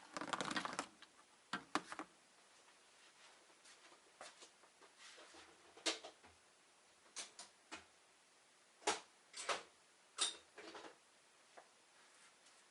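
Scattered clicks and clatters of small hard objects being handled and set down, with a short rustle at the start and a few sharper knocks around the ninth and tenth seconds.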